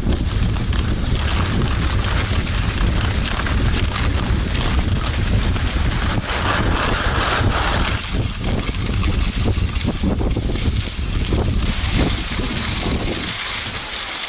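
Wind buffeting the camera's microphone in a loud low rumble, over the hiss and scrape of skis sliding across thin snow. The rumble eases near the end.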